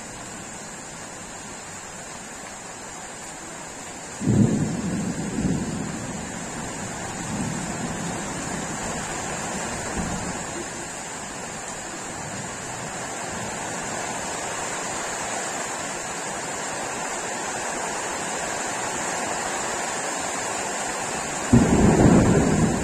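Thunder: a sudden loud clap about four seconds in that rumbles on in rolls for several seconds, then a second loud clap near the end, over a steady hiss of rain.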